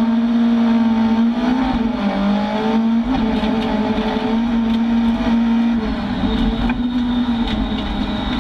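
Rallycross car's engine, heard from inside the cabin, running hard at high revs. Its pitch dips briefly about two seconds in and again near six and seven and a half seconds. Scattered sharp clicks sound over the engine.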